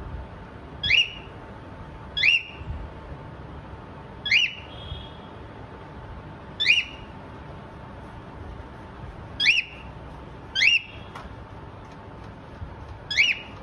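Pied cockatiel giving short, rising whistled contact calls, seven in all, spaced one to three seconds apart.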